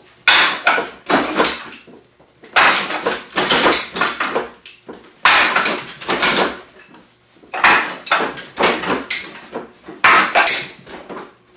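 Forearms and hands striking the wooden arms of a Wing Chun wooden dummy: quick clacking knocks in five flurries of several strikes each, about two and a half seconds apart.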